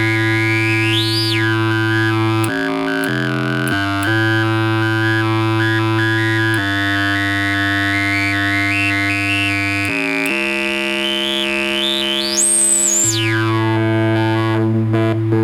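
Proton, a small single-IC analog synth, playing a sustained buzzy drone rich in overtones that steps between a few pitches. Its filter sweeps up into a high whistling resonance about a second in and again near the end, then falls back.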